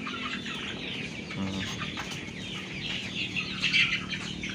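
A flock of young kampung chickens clucking and calling continuously as they feed. A cluster of louder calls comes about three and a half seconds in.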